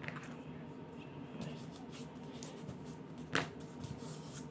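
Hands pressing and smoothing paper painter's tape onto cardboard, with soft rustling, and one sharp click about three and a half seconds in as a pair of scissors is set down on the plastic cutting mat.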